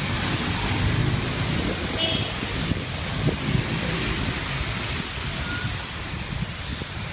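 Road traffic on a rain-soaked street: cars and a city bus passing, engines running and tyres swishing on the wet road over a steady hiss.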